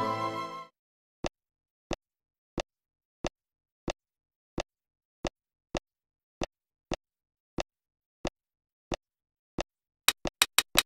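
Sharp, dry clicks of dubbed footsteps for walking LEGO minifigures, about one and a half steps a second with slightly uneven spacing. Near the end they give way to a quick run of louder clicks as a second figure comes in. Flute music fades out under a second in.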